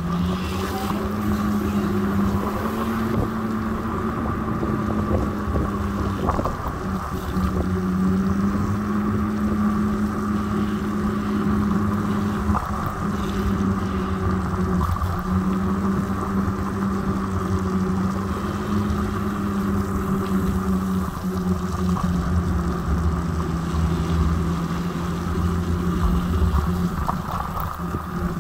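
Electric scooter's motor humming steadily while riding, its pitch drifting up and down a little with speed, over wind buffeting the microphone and a low rumble of tyres on the road.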